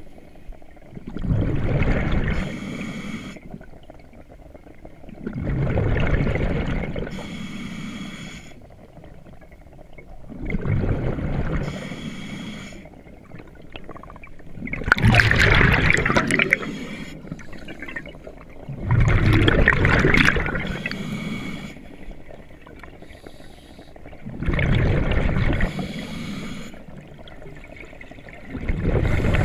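Scuba diver breathing through a regulator underwater: about seven breaths, one every four to five seconds, each with a loud rush of exhaled bubbles.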